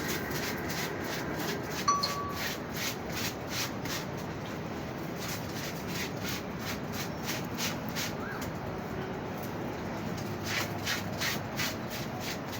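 Rhythmic rubbing strokes of laundry being scrubbed by hand, about two to three a second, stopping around eight seconds in and starting again near the end. A sharp click with a short beep about two seconds in.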